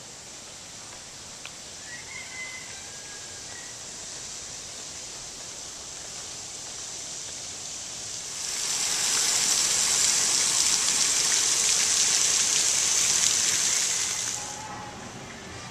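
Garden fountain jet splashing into a rock-lined pool: a steady hiss of falling water that comes in about eight seconds in, much louder than what went before, and fades out about six seconds later.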